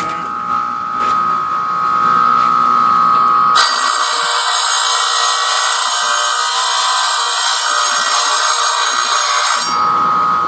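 Stained glass grinder running with a steady whine; from about three and a half seconds in until about a second before the end, a piece of glass is pressed against its diamond bit, giving a loud, harsh grinding.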